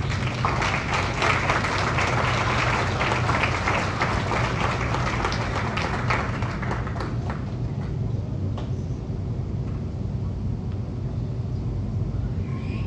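Audience applauding, dense clapping that fades away about six to seven seconds in, leaving a steady low hum.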